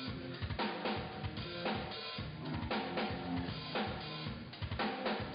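A full drum kit played as a groove, with kick drum, snare and other drums struck in quick succession, heard through the PA system during a sound check.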